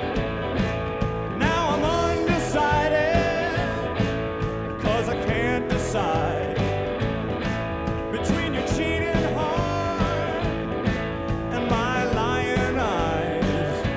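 Background song: a singing voice over instruments with a steady beat.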